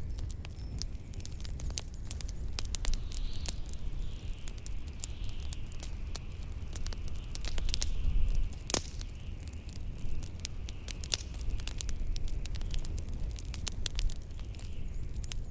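Wood fire crackling with frequent sharp pops over a steady low rumble of strong wind, which swells about halfway through.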